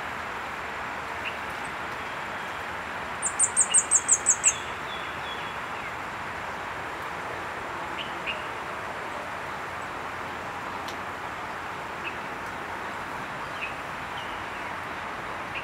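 Orange-bellied flowerpecker calling: a quick run of about eight high, thin notes about three seconds in, and a few faint short chips later on, over a steady background hiss.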